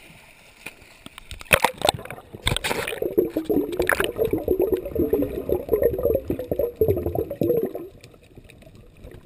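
Snorkeler diving under: a few splashes as the camera breaks below the surface, then about five seconds of muffled underwater bubbling and gurgling that fades out near the end.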